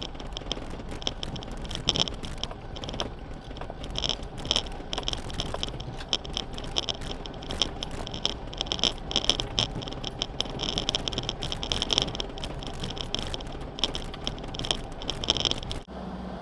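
Irregular rattling and jangling clinks over a low rumble, from a 4x4 driving slowly over a rough off-road track. Near the end it cuts off suddenly and gives way to a steady engine hum.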